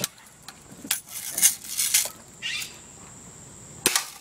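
BB gun shots: a few sharp snapping clicks, with the loudest one near the end.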